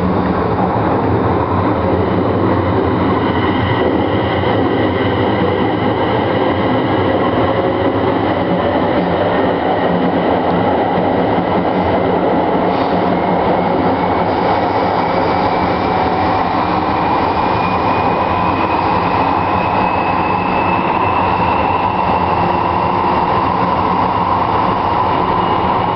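Siemens Desiro electric train running, a steady loud rumble with a motor whine that rises in pitch over the second half.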